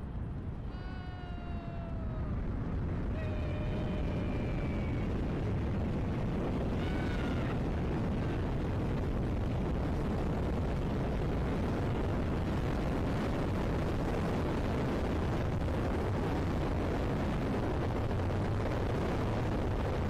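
Wind rushing over the camera microphone as a rider speeds face-down along a high-speed zip line, building over the first two seconds and then holding steady and loud. Over it, in the first few seconds, come a few short high cries that fall in pitch, the rider's whoops.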